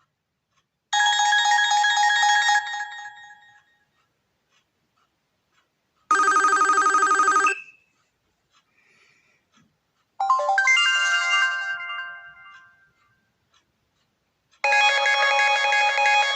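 HTC One M8 preset ringtones played one after another: four different short chiming melodies with brief silences between them. The second is shorter and cuts off abruptly, and the others ring out and fade.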